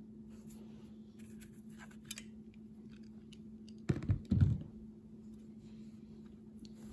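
Small clicks and taps of a screwdriver working a screw out of a chainsaw's side plate, with a couple of louder knocks of handling about four seconds in. A faint steady hum runs underneath.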